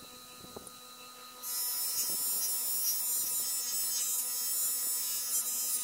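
Bench grinder motor running with a steady electric hum, its polishing wheel spinning. About a second and a half in, a metal bike stem is pressed against the wheel and a loud, steady hiss of buffing joins the hum.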